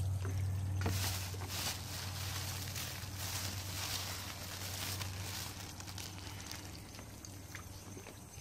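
Plastic bag rustling and crinkling as it is handled and opened, from about a second in, tailing off after about six seconds, over a steady low hum.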